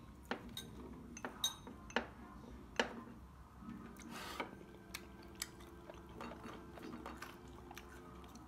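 Chopsticks and a spoon clinking against bowls and side-dish plates at a meal table: several sharp clinks in the first three seconds, then a short scraping rustle about four seconds in.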